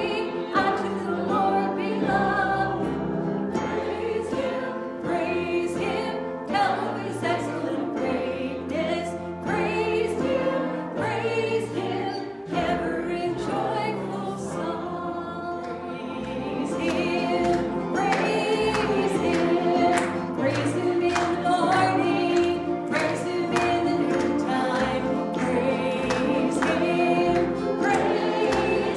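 Group of voices singing together with instrumental accompaniment and a steady beat, in the manner of gospel or worship music.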